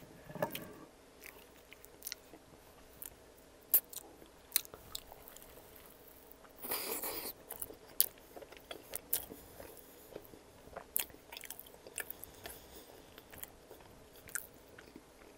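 Close-miked chewing of a chicken parm sandwich on soft toasted garlic bread, with wet mouth clicks and small crunches scattered throughout. There is a louder stretch of crunching about seven seconds in.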